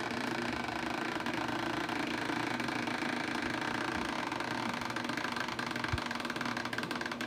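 A steady mechanical hum, like a small motor running, with one soft low thump about six seconds in.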